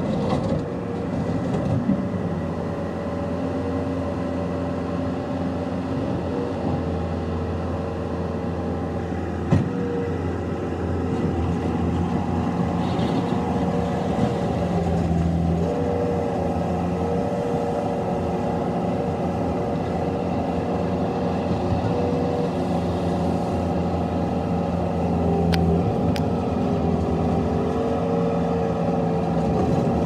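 Bobcat T190 tracked skid steer's diesel engine running under load, its pitch rising and falling as the machine drives and works the bucket into a gravel pile and lifts it. A few sharp knocks stand out, one about a third of the way in and two more near the end.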